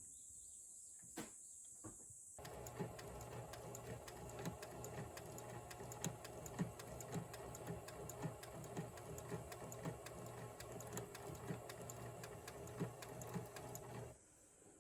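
Sewing machine running and stitching steadily: a hum with quick, even ticking of the needle mechanism. A couple of clicks come before it starts about two seconds in, and it stops shortly before the end.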